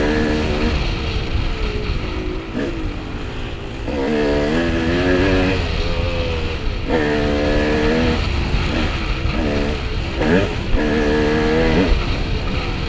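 Dirt bike engine revving up and down again and again as the throttle is opened and closed on a trail ride, with its pitch climbing in sweeps, over a steady low rumble.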